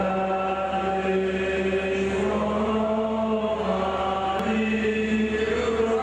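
Slow singing of long-held notes, each held for a second or two, in a chant-like melody.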